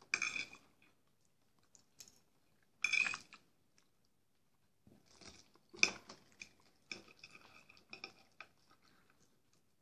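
Close chewing and mouth sounds of someone eating kholodets, Russian jellied meat, with a few light clicks of a metal spoon against an earthenware bowl. The sounds come in short scattered bursts, thickest in the second half.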